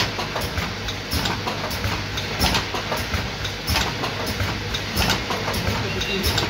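Rotary bottle filling and capping machine running: a steady mechanical hum with frequent irregular clicks and clatter of the indexing mechanism and plastic bottles, cutting off suddenly at the end.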